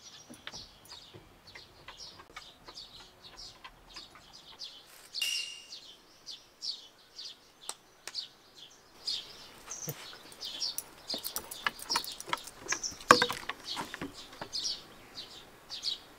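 Small birds chirping over and over in short, high notes, with one sharp knock about two-thirds of the way through.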